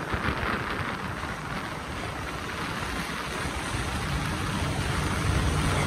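Vehicle driving through a long road tunnel: a steady drone of engine and road noise under a rush of air, with wind buffeting the microphone from the strong airflow of the tunnel's exhaust fans. It slowly grows louder toward the end.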